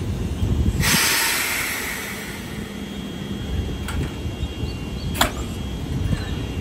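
Electric train's steady low rumble. About a second in comes a loud burst of air hiss that fades over about a second, and a few sharp clicks follow later.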